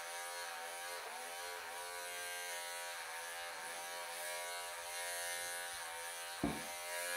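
Wahl cordless pet clippers running steadily as they shear through a Persian cat's dense, cotton-woolly coat, the buzz dipping briefly in pitch several times. A short knock about six and a half seconds in.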